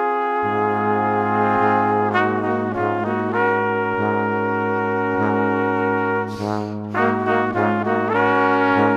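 Background music led by brass instruments, playing a melody over a low held note that comes in about half a second in. A brief hiss cuts across the music about six seconds in.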